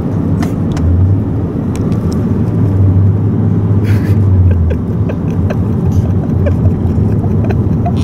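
Steady low rumble of a car driving, heard from inside the cabin; it grows louder for a few seconds in the middle. A few faint clicks and a brief rustle sit on top.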